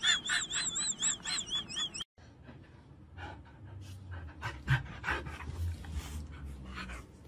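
A dog panting quickly in even strokes, about five a second, with a high wavering tone over the panting. After about two seconds it cuts off, leaving only faint scattered ticks and a low hum.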